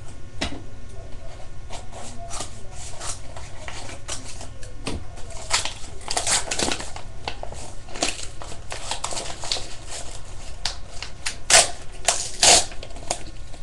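Paper and packaging rustling and crinkling in irregular bursts as a small mailed package is opened and a letter is pulled out, louder about halfway through and in two sharp crinkles near the end.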